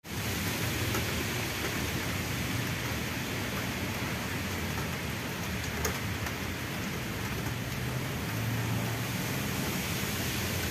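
Steady rain falling onto puddles and waterlogged ground: an even hiss.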